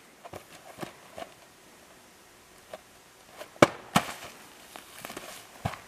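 A packaged RC truck box thrown hard against a tree and the ground: two sharp knocks about half a second apart, about two-thirds of the way through, the first the loudest, followed by a few lighter knocks and rustles in the grass.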